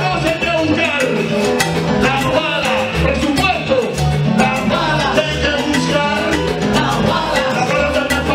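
Upbeat Latin dance music in salsa style: a repeating bass line under busy percussion and melodic parts.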